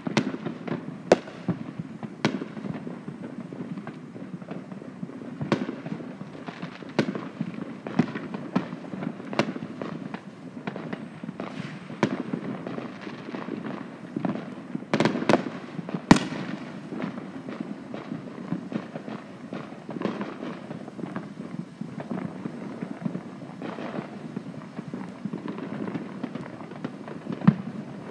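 Fireworks going off: many sharp bangs and cracks at irregular intervals, the loudest about sixteen seconds in, over a steady background noise.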